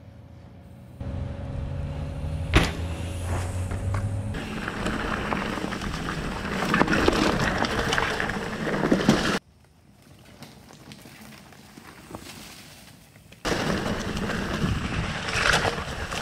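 A mountain bike ridden along a dirt singletrack: a steady rush of wind on the microphone mixed with tyres rolling over dirt and brushing through plants. There is a sharp click about two and a half seconds in, and the rush drops away for a few seconds in the middle before returning.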